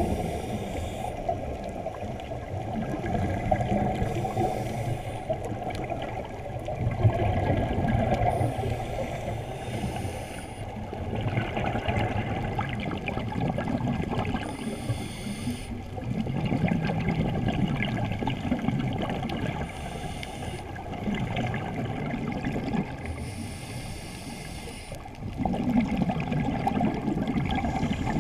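Scuba diver breathing through a regulator underwater, heard through a GoPro's waterproof housing: a short hissing inhale every few seconds, alternating with longer bubbling, gurgling exhalations.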